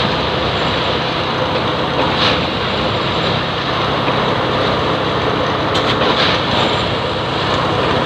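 Diesel engine of a Plasser & Theurer Unimat 08-16 track tamping machine running steadily, with a few brief hisses on top.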